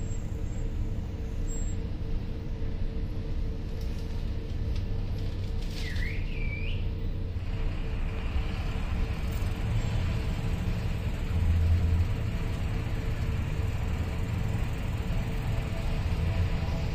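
City bus, a Volvo Caio Procity, running along the road with a steady low engine and road rumble. About six seconds in comes a brief wavering squeal.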